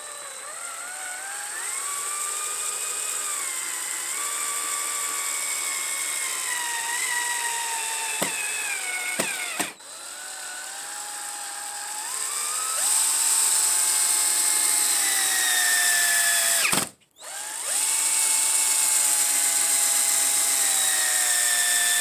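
Cordless drill-driver driving long wood screws through a door-lock bracket into a wooden door frame. The motor whines steadily, its pitch slowly dropping as each screw goes in. It stops briefly about ten seconds in and again about seventeen seconds in.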